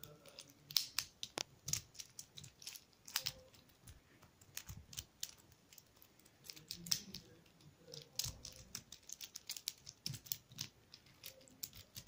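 A small plastic infinity cube being folded and flipped in the hand, its hinged blocks clicking together in quick, irregular clicks.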